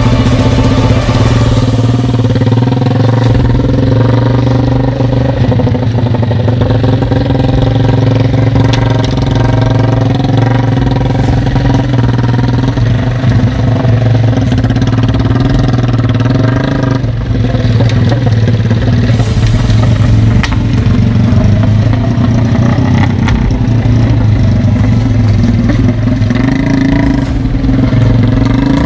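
The engine of a three-wheeled motorcycle, a Yamaha MX single, running loud and steady at an even speed.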